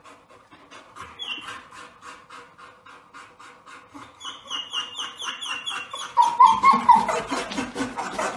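A dog scratching rapidly at the floor under a bed, about five strokes a second, while whining in short high squeaks. Near the end the whining grows louder, wavering in pitch.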